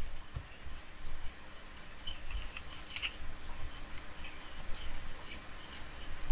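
Quiet room tone on a voice microphone: faint hiss and low rumble with light scratchy rustling and a few soft ticks in the middle of the stretch.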